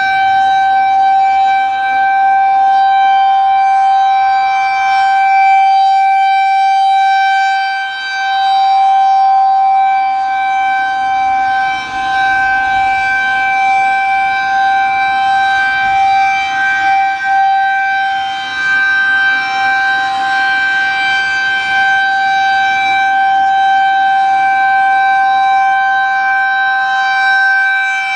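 Federal Signal 2001-130 electromechanical outdoor warning siren sounding its steady full-alert tone in a test. It holds one pitch throughout, loud, with its level dipping briefly now and then.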